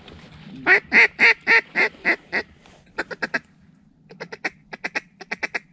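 Mallard duck call blown by a hunter: a series of about seven loud quacks that fade a little, then two runs of quicker, shorter quacks. It is calling to passing mallards to bring them in to the decoys.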